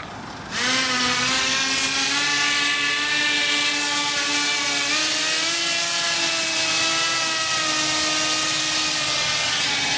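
RC blimp's small electric propeller motors whining at full thrust as the blimp climbs. The steady whine starts about half a second in, creeps slightly up in pitch, then eases a little near the end.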